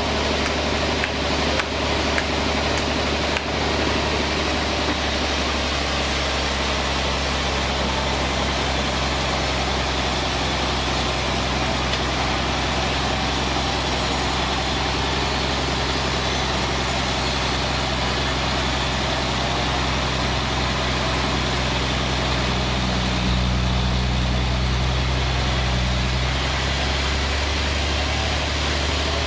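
Band sawmill running steadily: a low, even machine hum under a broad rushing noise, with a few light clicks in the first seconds and the hum swelling briefly about three-quarters of the way through.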